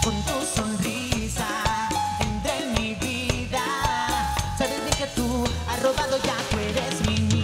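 Music: a pop song with a drum-kit beat, a bass line and a wavering melody line.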